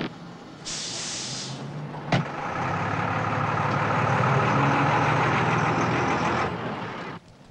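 Coach bus: a short burst of air hiss about a second in and a sharp knock a second later, then the coach's engine running steadily as it drives past. The engine cuts off sharply near the end.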